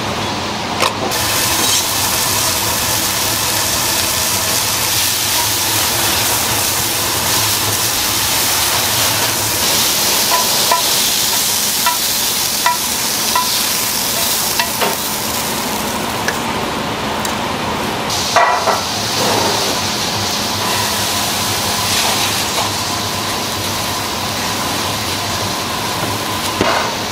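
Steady sizzling of food cooking hot, starting about a second in, with a few light metal clinks of utensils and a louder clatter about two-thirds of the way through.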